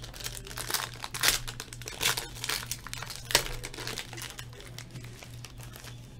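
A sealed pack of trading cards being torn open by hand, its wrapper crinkling and tearing in a quick run of crackles, with a sharp snap about three seconds in, then quieter handling.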